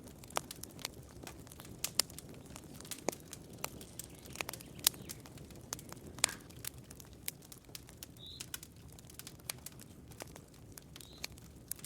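Campfire burning: wood crackling with irregular sharp pops over a low steady rumble of the flames. Two short high chirps come through, about two-thirds of the way in and near the end.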